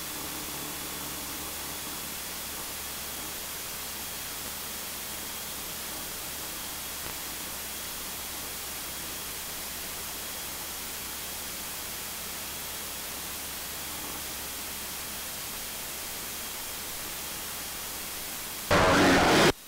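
Steady hiss of a light aircraft's cockpit noise recorded through the intercom feed, with a faint high steady tone. The pilot guesses one volume was set too high, making it sound like a jet engine. Near the end, a much louder rush of noise cuts in suddenly for about a second.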